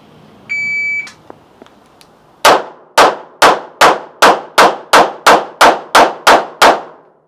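A shot timer gives one short, high start beep. About a second and a half later a handgun fires twelve shots in quick, even succession, about three a second, each followed by a short echo.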